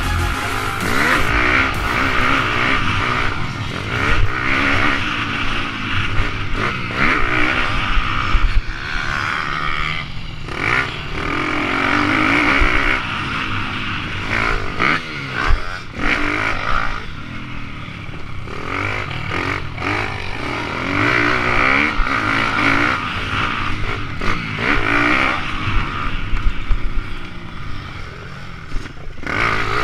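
Pit bike engine revving up and down as the bike is ridden over a dirt track, heard close from on the bike. The engine note rises and falls every second or two with short breaks as the throttle is opened and shut.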